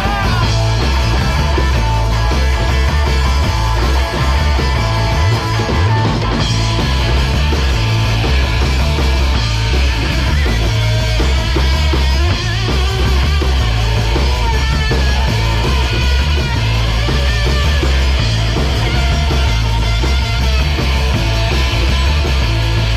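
Live punk-rock band playing loud and steady: distorted electric guitar, pulsing bass and a drum kit.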